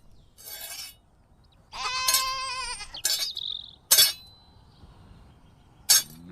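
A farm animal bleating once, a long call with a wavering pitch, with a few sharp clicks before and after it.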